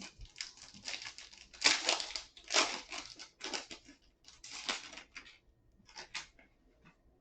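Plastic wrapper of a trading-card pack being torn open and crinkled, in a run of irregular crackles that thins out near the end.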